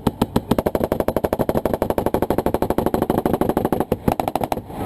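Automatic weapon firing a long sustained burst at a fast, even rate. The fire pauses briefly about four seconds in, then one short burst follows and it stops.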